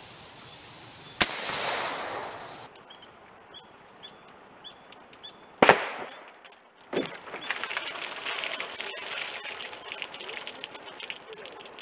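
.54 caliber big-bore air rifle, fed from a scuba tank, fires once about a second in: a sharp report with a short hissing tail. A few seconds later comes a second sharp crack as the slug hits a water-filled plastic jug, and then water gushes and splatters out of the jug onto wooden boards.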